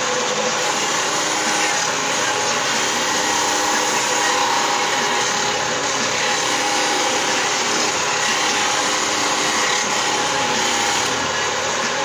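Bench-mounted wet-cutting circular stone saw running steadily with its blade grinding through strips of natural stone, a continuous, even grinding noise.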